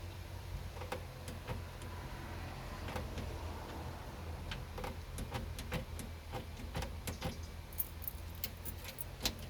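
Irregular small metallic clicks and rattles of a paper clip being pushed and worked into the ignition lock cylinder housing, coming thicker in the second half, over a steady low hum.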